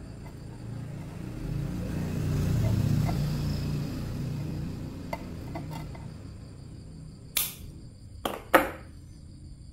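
Small metal pliers working a thin wire to bend a hook tip: a low rumble of handling, a few faint clicks, then three sharp metallic clicks near the end, the last the loudest.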